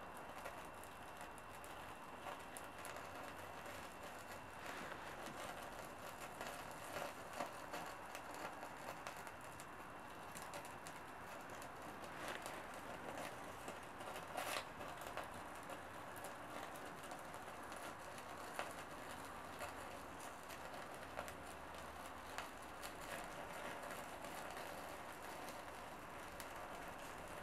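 Small kindling fire catching under split firewood, crackling faintly with scattered small pops and a sharper crack about 14 seconds in.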